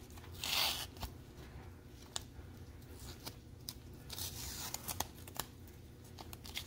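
A stack of plastic-sleeved trading cards held together with tape being handled: a short rustle about half a second in, scattered light clicks and taps, and another soft rustle around four seconds.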